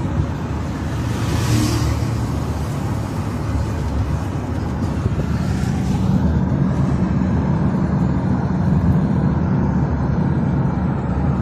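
Road noise inside a moving car: a steady low rumble of engine and tyres, with two brief rushing swells, about a second and a half in and again around five and a half seconds in.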